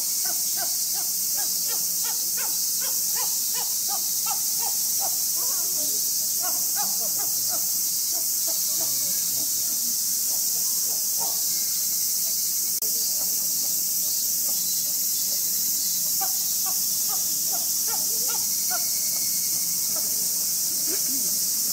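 Cicadas droning in a steady, high hiss, with short scattered chirping notes lower down, thickest in the first third and again about three quarters of the way through.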